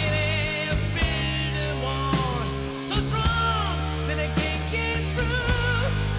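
Rock power ballad: a lead melody with wide vibrato and bends over a steady drum beat and sustained bass, with no words sung.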